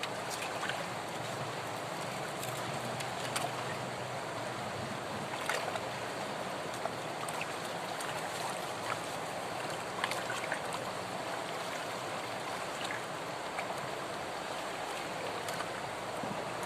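River water flowing with a steady rushing noise, broken by a few light clicks.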